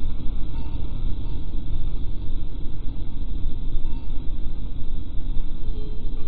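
Steady low rumble of road and engine noise inside a moving car's cabin while it drives along a multi-lane road.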